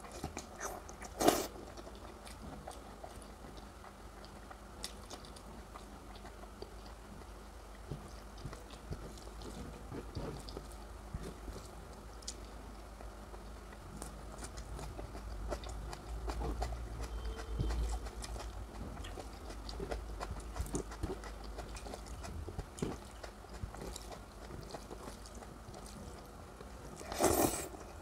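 Close-up chewing and eating of curry and rice, with soft wet mouth clicks scattered throughout. A sharp knock comes about a second in, and a longer, louder knock near the end.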